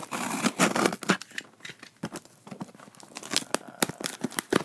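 Packing tape tearing on a cardboard shipping box: a dense rasp for about the first second, then scattered crackles and clicks as the cardboard is worked open, with a sharp click near the end.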